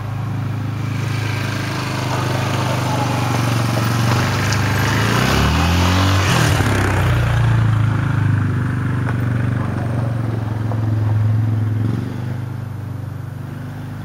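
Yamaha Wolverine 450 ATV's single-cylinder four-stroke engine running as the quad is ridden, its carburetor freshly cleaned of gum from stale fuel. It grows louder toward the middle, with a brief swing in pitch about halfway, and fades near the end.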